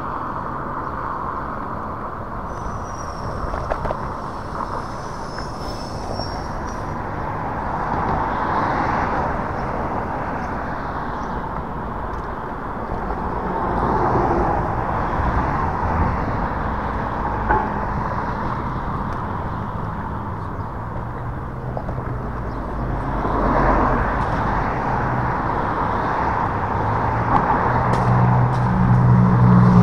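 Steady wind and road noise from riding a Hiboy S2 Pro electric scooter, swelling a few times, with a faint high whine for a few seconds near the start.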